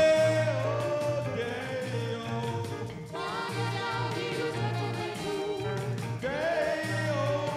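A woman singing a pop song with band accompaniment: long held, wavering notes over a steady, pulsing bass beat.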